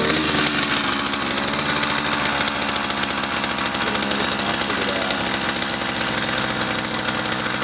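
66cc two-stroke Chinese kit engine on a motorized bicycle idling steadily with rapid, even firing pulses; its idle is still being adjusted.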